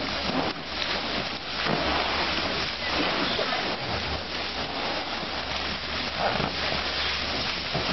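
Steady hiss of water spray with splashing as a baby elephant rolls about in a shallow inflatable paddling pool.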